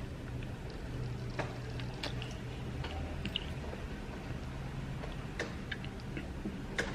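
Eating sounds of someone eating amala and ewedu soup: scattered soft, wet clicks and squishes of food and mouth, the loudest one near the end, over a low steady hum.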